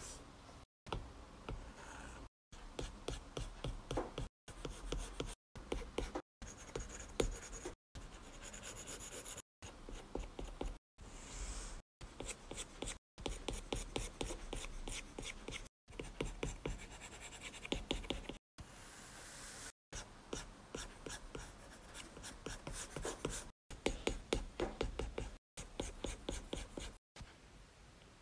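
Stylus scratching and tapping across a tablet screen in quick drawing strokes, heard in short runs that cut off abruptly every second or two.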